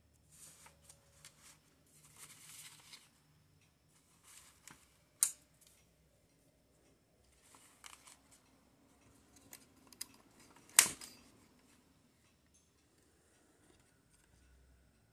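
Sheets of drawing paper rustling and sliding on a wooden desk as they are handled, with several sharp clicks and knocks. The loudest knock comes about eleven seconds in, with another about five seconds in.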